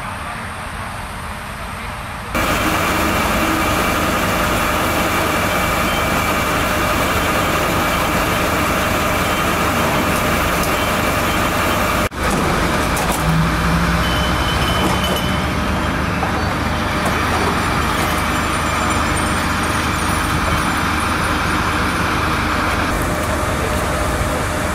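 Steady road-vehicle noise: engines running and traffic going by, with a faint steady hum. The sound steps up sharply about two seconds in and breaks off for an instant about halfway through.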